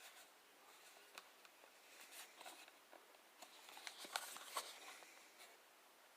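Faint handling noises of a small folding pocket knife: scattered light clicks and rustles, with a denser cluster of sharper clicks about four seconds in.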